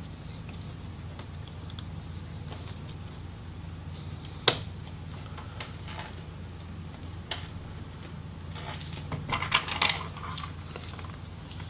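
Small clicks and light handling noises from fingers working ribbon-cable connectors and cables on a MacBook Pro logic board. There is one sharp click about four and a half seconds in, then a cluster of small clicks and rustling later on, over a steady low hum.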